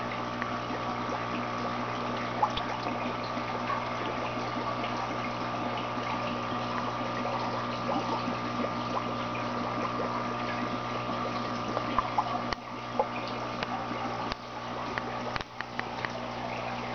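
Water trickling and splashing in the channel of a small plant-growing tray, over the steady hum of its water pump.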